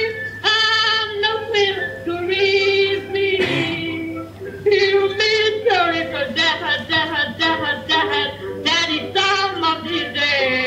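A high voice singing long, wavering notes that slide between pitches, phrase after phrase without words, over a steady low hum.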